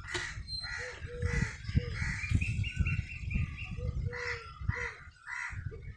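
Crows cawing over and over, about two calls a second, with a quicker string of higher calls a little past the middle, over a low rumble.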